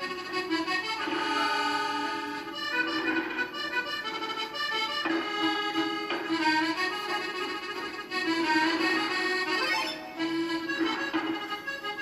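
Instrumental accordion music: a melody moving over a held low note.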